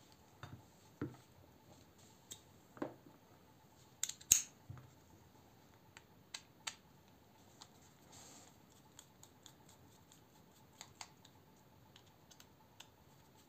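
Scattered small clicks and taps from handling a folding knife's parts and a Torx bit driver, with a louder double clack about four seconds in and a brief scrape around eight seconds.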